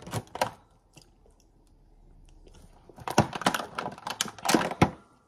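Food packaging being handled: two clicks at the start, then a dense run of clicks and crackles from plastic containers and a paper carry bag in the last two seconds.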